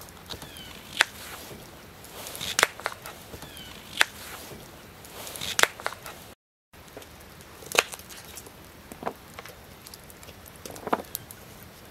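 Knife cutting whole sweet potatoes on a thin plastic cutting board: sharp knocks every second or two as the blade goes through and hits the board.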